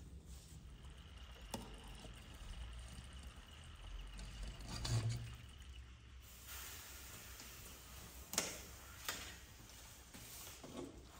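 Faint kitchen handling sounds: a few light knocks and a soft thump as a skewered whole chicken is lifted from a steel pot and set down on a metal tray.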